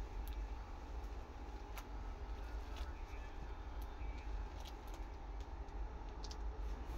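Saree fabric rustling faintly with a few soft crinkles as it is unfolded and lifted, over a steady low background hum.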